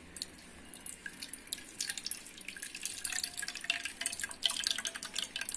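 Tamarind juice dripping and splashing into a bowl as soaked tamarind pulp is squeezed by hand: many small drips, sparse at first and growing busier from about two seconds in.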